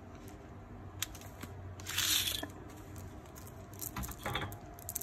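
Handling noise as a beaded necklace is laid out and measured: a few light clicks and a brief rustle about two seconds in, with more small clicks around four seconds in.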